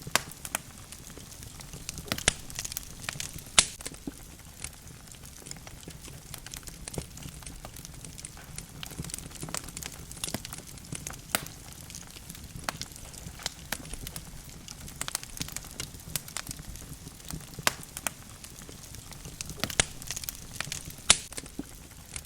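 Wood fire in a fireplace crackling, with irregular sharp pops and snaps over a low steady rumble of flames; the loudest pops come at about three and a half seconds and again near the end.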